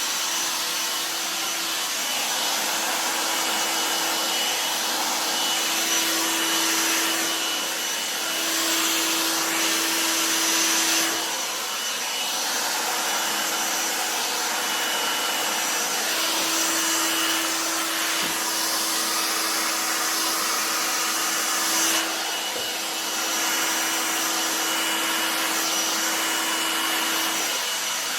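Handheld hairdryer running continuously: a rush of blown air over a steady motor hum, the loudness rising and dipping slightly throughout.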